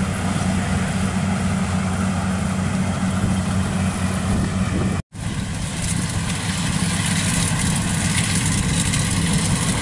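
Kubota DC95 combine harvester's diesel engine running steadily as it harvests rice. About five seconds in the sound breaks off for an instant, and afterwards the engine hum carries a steady high whine from the machine's threshing drive.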